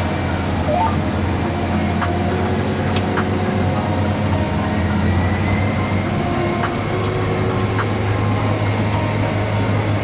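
Tractor engine and drivetrain heard from inside the cab, running at a steady working pace with a constant low hum and a few light ticks, while the tractor tows a chaser bin alongside a combine harvester that is unloading grain.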